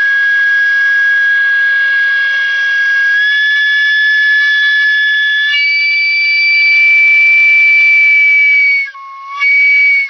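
Homemade steam whistle made from a slotted 3/4-inch copper pipe, blowing a loud, steady whistle on steam from a pressure cooker. Its pitch steps up slightly about three seconds in, then jumps higher about five and a half seconds in. Near the end it breaks off for a moment with a short lower tone, then sounds again at the higher pitch.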